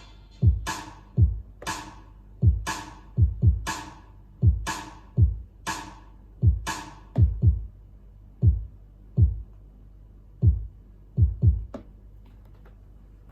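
Electronic drum beat from a Native Instruments Maschine: kick drums that drop in pitch, with bright clap or snare hits on top. The bright hits drop out about seven seconds in, leaving sparser kicks that stop about a second before the end.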